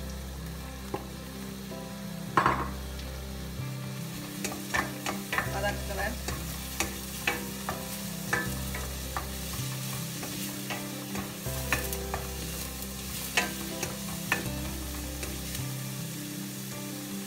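Chopped onions and green chillies sizzling in hot oil in a stainless steel kadai while a wooden spoon stirs them, knocking and scraping against the pan many times. One louder knock comes about two and a half seconds in.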